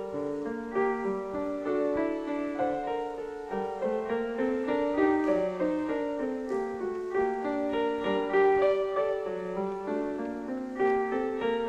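Piano music: a continuous, flowing run of overlapping notes.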